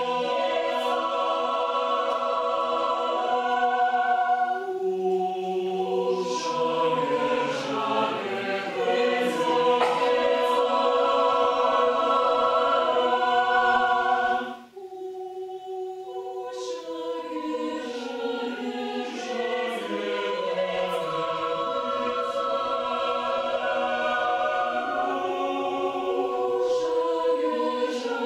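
Mixed choir singing held chords. About halfway through the singing cuts off sharply, then comes back more softly and builds again.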